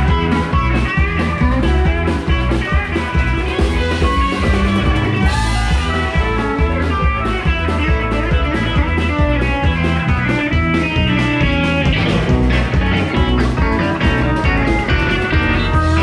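Live outlaw-country band playing: guitar over bass and drums with a steady beat.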